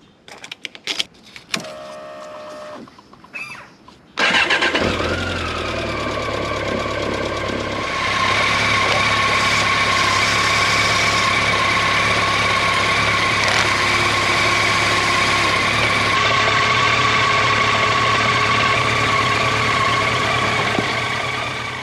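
BMW K1200RS motorcycle's inline-four engine: a few clicks and a short hum, then it starts about four seconds in and runs steadily, growing louder about eight seconds in.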